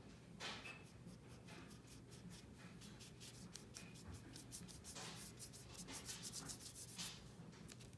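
Faint, scratchy rubbing of a paintbrush working acrylic paint into paper in quick back-and-forth strokes, coming in short flurries.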